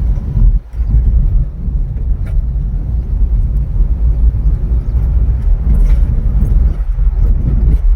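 A car driving, with a steady low rumble that dips briefly twice.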